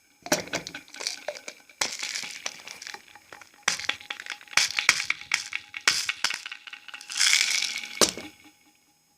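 Objects being handled close to a microphone as ASMR triggers: irregular crinkling and crackling with sharp clicks and taps, in uneven bursts that come and go.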